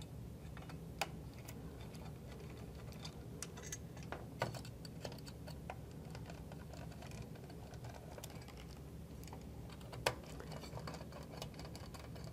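Faint, irregular small metal clicks and ticks of a hand hex driver backing out small 2.5 mm screws from a metal motor shaft cover, with a few sharper clicks about a second in, about four and a half seconds in and about ten seconds in.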